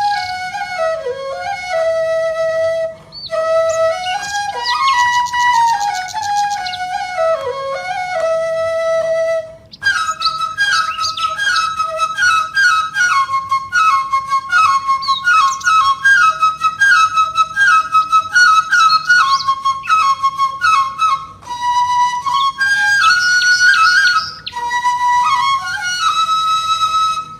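Background music carried by a flute playing a flowing, ornamented melody, with a quicker repeating figure from about ten seconds in.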